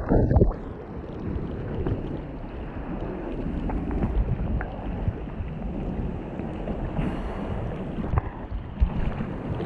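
Rough sea washing and sloshing around a camera held at the water surface, with a louder splash of a breaking wave just after the start and smaller slaps of water through the rest.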